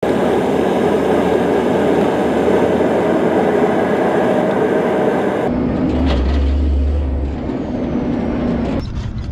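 Heavy truck engine running steadily as the TOS-2 launcher vehicle drives along. Just past halfway the sound changes abruptly to a lower, deep engine hum.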